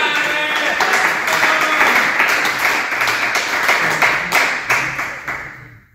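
Applause: a group of people clapping after a point is won, dying away and stopping just before the end.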